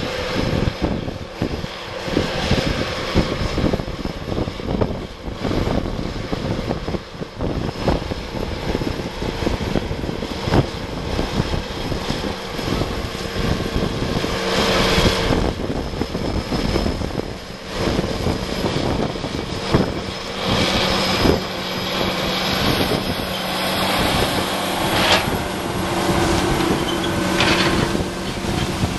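Large four-wheel-drive tractor's diesel engine running steadily under load while it pulls a 13-shank Landoll 2211 disc chisel through corn stalks. It gets louder as the tractor passes close, about halfway through. Wind buffets the microphone throughout.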